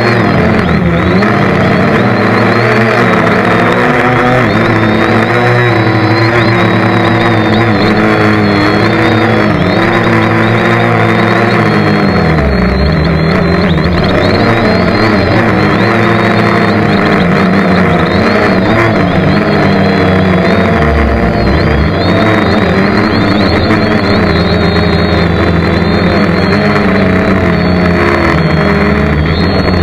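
Loud, steady engine-like noise made of many layered pitches that waver up and down.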